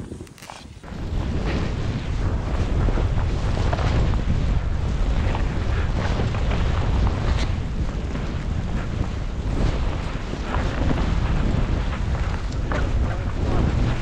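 Wind buffeting an action camera's microphone as a skier runs down through deep powder: a loud, steady, rumbling rush that comes in about a second in and keeps on without a break.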